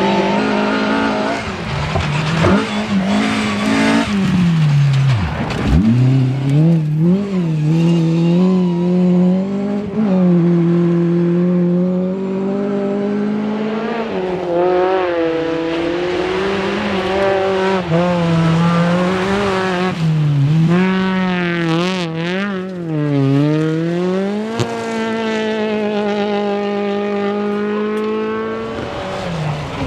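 Historic rally car engines revving hard on a special stage, the pitch repeatedly climbing and dropping with gear changes and lifts. About five seconds in the engine note falls steeply as a car goes by, and later it dips and climbs again as a car slows for a corner and accelerates away.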